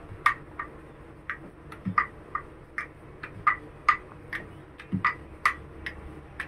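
Puri dough being rolled out with a wooden rolling pin on a marble countertop: irregular light clicks, two to three a second, with dull knocks about two and five seconds in.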